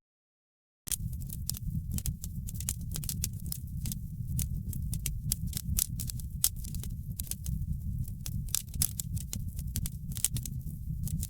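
Wood fire in a fireplace crackling: a steady low rumble of the flames with many irregular sharp crackles and pops. The sound drops out to silence for about a second at the very start.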